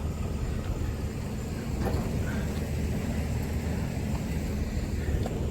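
Steady low rumble of a vehicle engine running at idle, with a couple of faint knocks about two seconds in.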